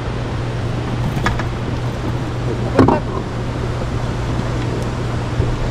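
Boat motor running with a steady low hum under wind and water noise, with a brief louder knock about three seconds in.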